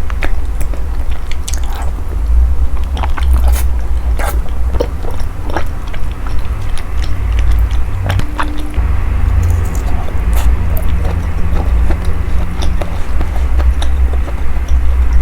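Close-miked eating: biting and chewing food, with many short, sharp clicks and snaps spread throughout, over a steady low rumble.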